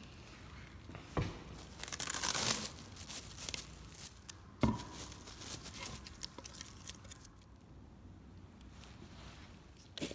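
Clear plastic sheeting crinkling and rustling as an epoxy-coated plywood test piece is handled and lifted from it. There is a knock about a second in and a sharper knock with a brief ring near the middle.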